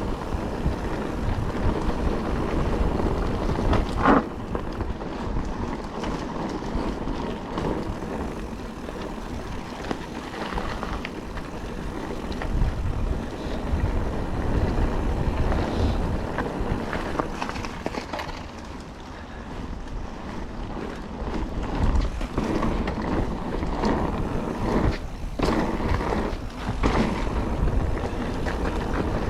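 Calibre Triple B mountain bike riding fast over a dry, loose trail: tyres rolling and crunching over the surface, with wind buffeting the action camera's microphone. A sharp knock about four seconds in and several more near the end mark bumps and impacts on the trail.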